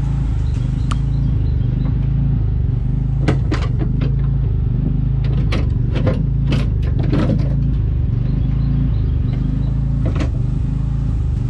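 A steady low motor hum with a series of sharp metallic clicks and knocks, mostly in the middle, as a door handle still attached to its linkage rods is worked loose inside a pickup door.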